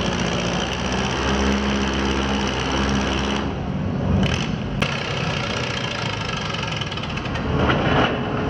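Antique tractor engines running at low speed with a steady rhythmic beat, inside an indoor arena.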